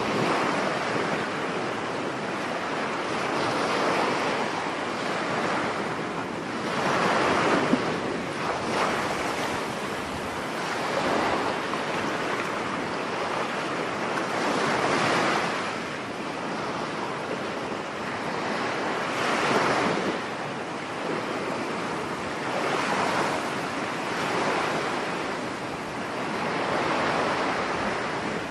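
Surf breaking on a beach in stormy weather: a continuous wash of water that swells with each wave about every three to four seconds, with wind.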